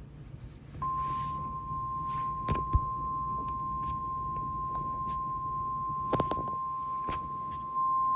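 NOAA Weather Radio 1050 Hz warning alarm tone, one steady single-pitch tone received over the radio, starting about a second in and stepping up in loudness near the end. It is the alert that comes before a new warning message. A few sharp static clicks break in.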